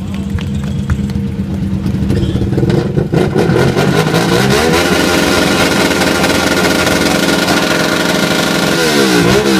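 Hyosung Aquila V-twin motorcycle running near idle, then revved up about four and a half seconds in and held at high revs, then blipped up and down repeatedly near the end.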